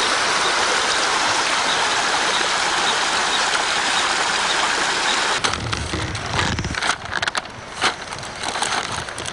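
Steady hiss of rushing water from a mountain creek and waterfall, cutting off abruptly about five and a half seconds in. After it come a short low rumble and scattered clicks and knocks.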